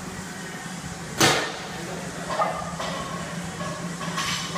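Gym equipment clanking: one loud sharp clank about a second in, then a few lighter knocks, over a steady low hum.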